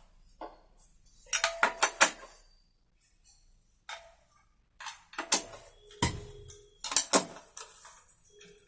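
Sharp metallic clinks and taps of a socket wrench and bolts against an aluminium scooter engine crankcase as its bolts are fitted and tightened. There is a quick cluster of about five clinks early on, then more scattered ones in the second half, some ringing briefly.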